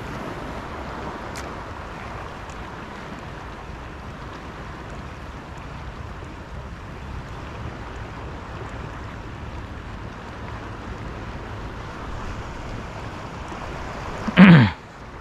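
Steady hiss of wind on the microphone mixed with sea surf washing over the shallow reef flat. Near the end comes one short, loud cry of a person's voice.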